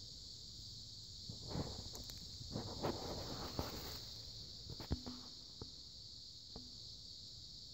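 Steady high-pitched insect chorus, crickets or similar, with a few crunching footsteps from about a second and a half in to about four seconds, then a few sharp clicks.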